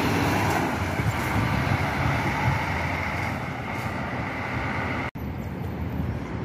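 Intercity coach's diesel engine running as the coach pulls away, its rumble easing off as it drives further away. A sudden break about five seconds in, after which a second coach's engine is heard, quieter.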